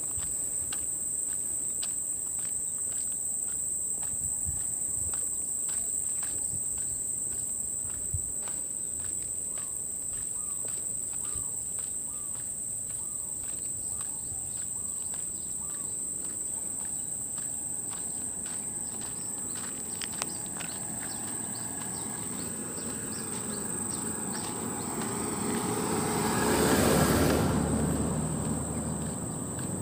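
Insects in the roadside grass keep up a steady high-pitched drone, with footsteps on a paved road ticking about twice a second. Near the end a louder rushing sound swells up and fades away.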